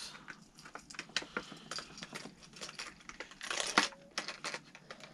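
Irregular small clicks and ticks of metal being handled: the treble hooks and split rings of a crankbait being worked off to change the hooks, with a louder cluster of clicks about three and a half seconds in.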